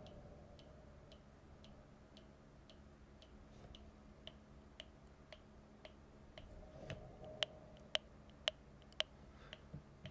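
Small 8-ohm speaker of a cheap oscillator tone-generator kit ticking evenly, about two clicks a second: very quiet, but the sign that the freshly soldered circuit works. The clicks get louder about seven seconds in, with a little handling rustle.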